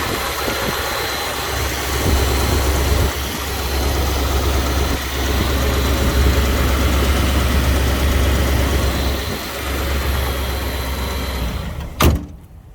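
A 1956 Continental Mark II's V8 engine idling steadily with a deep low rumble. Near the end the running sound drops away, followed by a single sharp knock.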